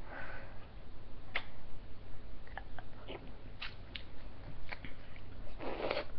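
Frozen ice lollies being bitten and crunched: a scatter of short, sharp crunches, with a short noisy rush near the end.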